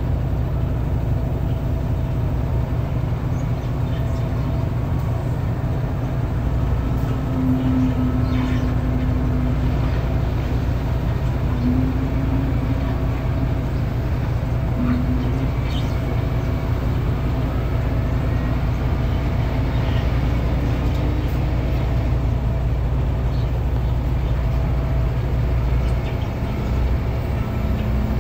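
SDLG wheel loader's diesel engine running with a steady low rumble as the loader drives across wet gravel and into a stone pile, a humming tone swelling and fading several times over it.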